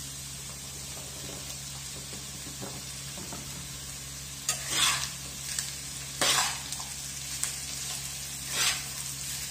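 Potatoes, chorizo and sausage frying in a pan with a steady sizzle. From about four and a half seconds in, a spatula scrapes through the pan in several strokes, stirring in freshly added chopped onion and bell peppers.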